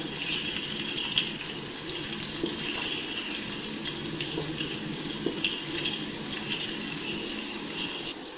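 Chicken frying in ghee with browned onions, a steady sizzle with scattered pops and crackles as the chicken's released juices cook off, while it is stirred in the pan with a wooden spatula.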